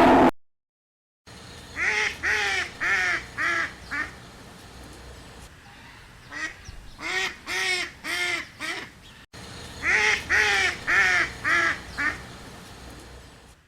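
Duck quacking in three quick runs of about five quacks each, separated by short pauses.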